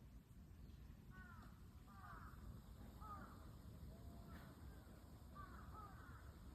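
Faint crow cawing: short calls repeated roughly once a second, some in quick pairs, over a low steady background rumble.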